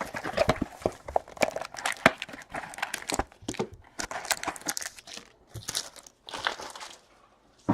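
Trading card pack wrappers crinkling and being torn open in short, irregular bursts, with a brief lull near the end.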